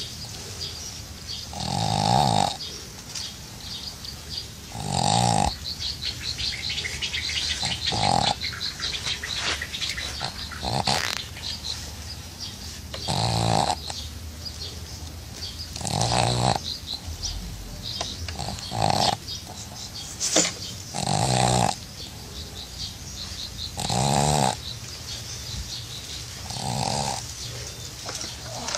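A sleeping pet snoring: a rattling snore about every three seconds, with fainter wheezy breathing between the snores.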